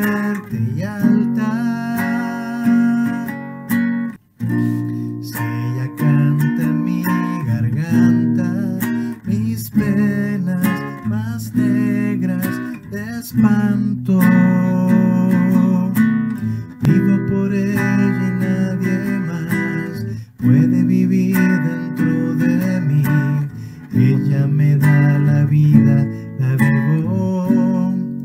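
Acoustic guitar strummed in a steady rhythm, playing chords that include C♯, B7 and F♯.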